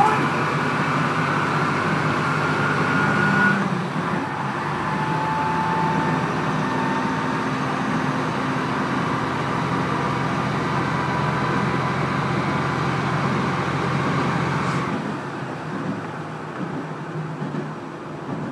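Diesel railcar running at speed, heard from inside the passenger car: a steady engine drone with a faint whine on top. About fifteen seconds in, the running noise drops and grows quieter.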